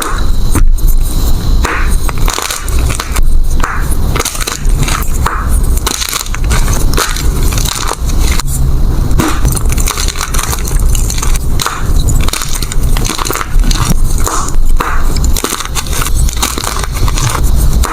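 Blocks of gym chalk being crushed, with many crisp crunches and crumbles in quick, continuous succession over a heavy low rumble of handling.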